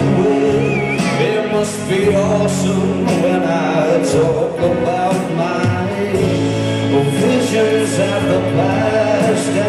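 Live rock band playing a slow song: electric guitar, bass guitar, drums and strings, with a male lead vocal.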